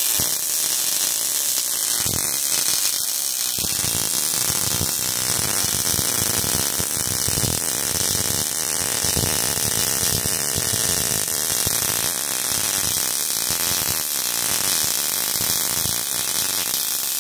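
Steady electronic static with a buzzing hum, a glitch-style outro sound effect.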